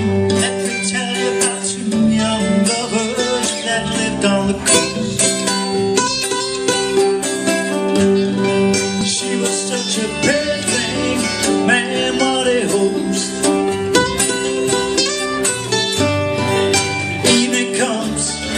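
Live acoustic band playing an instrumental intro: strummed acoustic guitar and upright double bass under a sliding fiddle melody.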